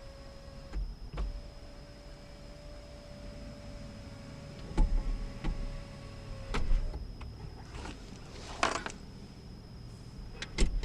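Power window motor in a 2015 Lexus ES350 door running steadily as the glass travels, with several sharp clicks and knocks from the door. A short scraping rustle comes near the end.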